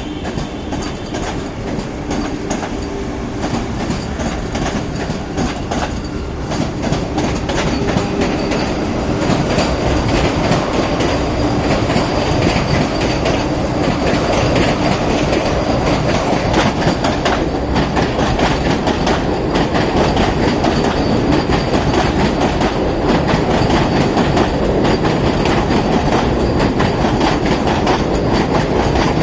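Vande Bharat Express electric trainset rolling out of the station, its wheels clattering over the rail joints, growing steadily louder as it gathers speed.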